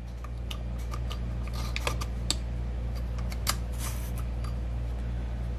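Scattered small clicks and taps of plastic and metal parts as an SXK SupBox Pro box mod is handled and its parts fitted, with a short brushing scrape about four seconds in, over a steady low hum.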